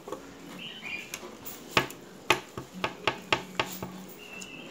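Eating at a table: a quick run of sharp clicks and taps, about eight in two seconds, as skewered food and fingers knock against a plate.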